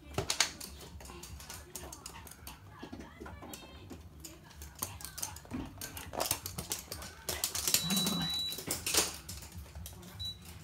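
Toy poodles' claws clicking on a hard, glossy floor as the dogs scramble and run after a thrown toy. The clicks come in irregular flurries, busiest in the second half.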